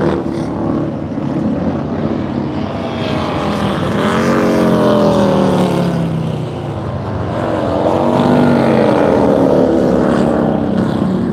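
Race bagger motorcycles with V-twin engines going through a corner. The engine note falls as a rider brakes into the turn, then rises as the bike accelerates out, and rises again near the end as another bike comes through.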